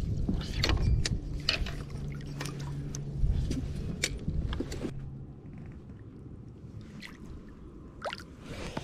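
Knocks and clicks of handling on a plastic kayak hull while a hooked bass is fought in, with a low hum through the first half. Near the end the water splashes and gurgles as the bass thrashes at the surface beside the kayak.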